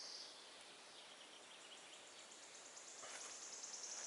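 Quiet outdoor ambience, near silence. A faint, high-pitched buzzing trill sets in about three seconds in.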